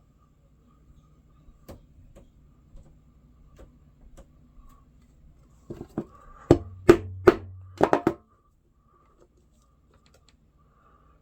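Scattered light clicks and taps from hand work, then a quick series of about six sharp knocks about two-thirds of the way through.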